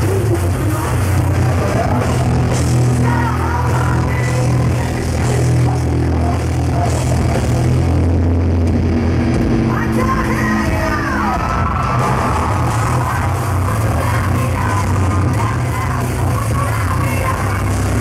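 Heavy metal band playing live, with a heavy, booming low end and a female vocalist singing over it.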